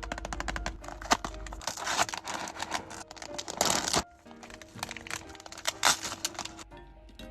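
Packaging being crinkled and rustled, with sharp clicks and two louder bursts of crackling about two seconds and three and a half seconds in, over background music.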